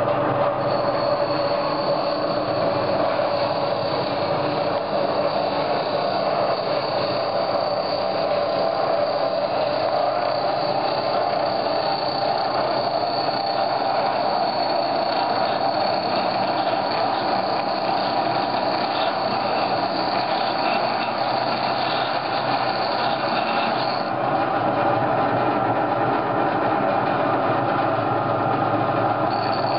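A bench grinder, belt-driven by a 1.5 hp DC motor, grinds weld lumps off a steel mower spindle that is pushed hard into the wheel, giving a steady grinding roar with a high whine over it. The motor keeps its speed while the solar DC supply is at near 200% overload. The high whine drops out about three quarters of the way through and returns near the end.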